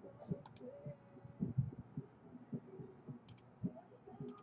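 Faint scattered soft knocks with three short, sharp clicks, as of small objects being handled and set down on a desk.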